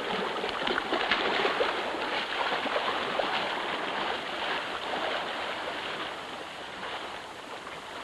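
Water rushing and splashing, with fine crackling spray. It swells over the first couple of seconds, then slowly eases off.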